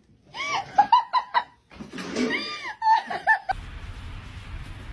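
A person laughing in rapid, high-pitched bursts and squeals. About three and a half seconds in it cuts off abruptly to a steady low background rumble.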